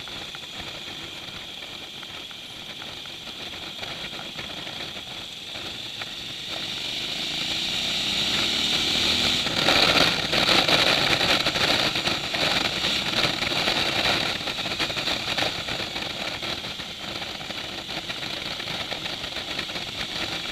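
Motorcycle engine running with wind noise while riding, heard through a bike-mounted camera's microphone. The engine note rises about seven to nine seconds in. The wind noise is loudest from about ten to fourteen seconds in, then eases.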